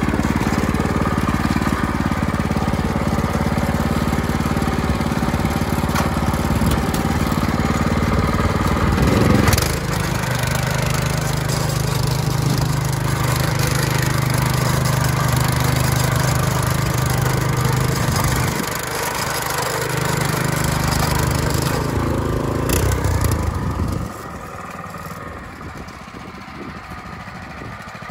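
WEIMA WM500 walk-behind tractor's engine running under load while ploughing heavy clay soil. Its pitch shifts about nine seconds in and dips briefly around two-thirds of the way through. About four seconds before the end it becomes much quieter.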